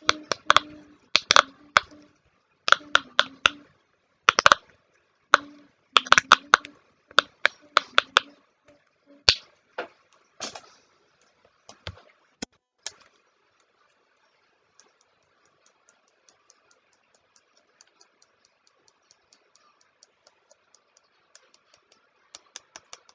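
Sharp plastic clicks and taps from fidget toys being handled, in quick clusters for about the first half. Then comes a faint run of fast, even ticking, and a few louder clicks just before the end.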